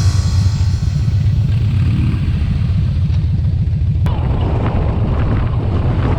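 Motorcycle on the road: a loud, steady low rumble of engine and road noise. About four seconds in, a wider hiss abruptly joins the rumble.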